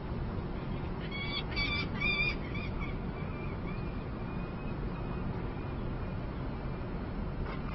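A juvenile falcon calling: a quick run of short, harsh notes, then a fainter wavering call that trails off, over a steady low city rumble.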